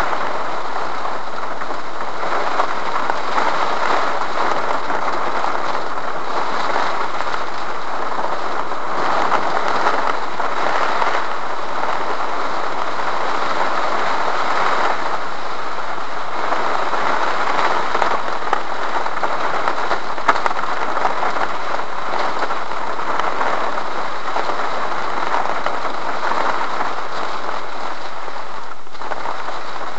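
Rain drumming on a car's roof and windshield, heard from inside the car as a loud, steady hiss of many small drops.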